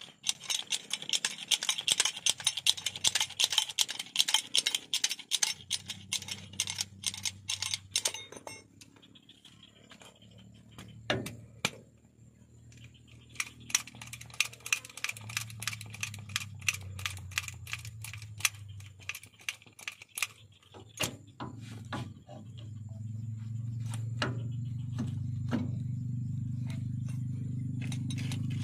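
Hydraulic bottle jack being worked by its steel handle to raise a vehicle's rear axle: rapid metallic clicking and rattling, densest in the first eight seconds, then scattered clicks. A low steady hum grows louder in the last few seconds.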